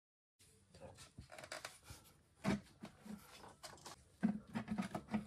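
Plastic intake manifold on a BMW N55 inline-six being worked loose and pulled back by hand: irregular rattling and knocking, with a sharp knock about halfway through and another, followed by a quick run of dull thuds, near the end.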